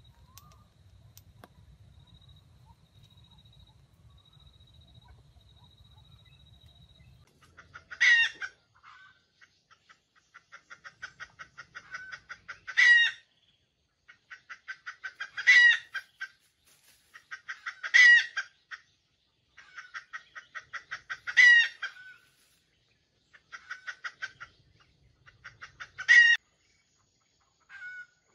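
Red junglefowl rooster crowing about six times, starting about eight seconds in. Each short crow is led in by a quickening run of rapid clucks.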